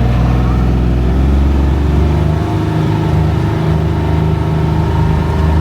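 A vehicle's engine running steadily as it drives slowly along, with a deep, even hum.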